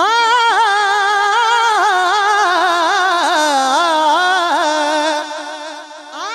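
A man singing a naat unaccompanied into a microphone. He holds one long, ornamented note with wavering pitch for about six seconds, and it fades near the end.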